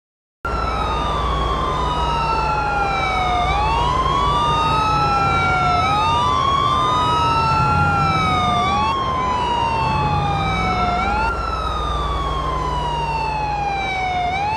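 Police sirens wailing, starting suddenly about half a second in, their pitch slowly rising and falling every few seconds, two of them out of step, over a low rumble.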